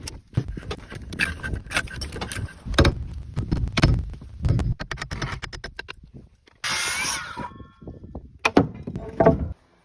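Irregular knocks and thuds of timber being worked and handled, with a short harsh squealing burst about seven seconds in and two more heavy knocks near the end.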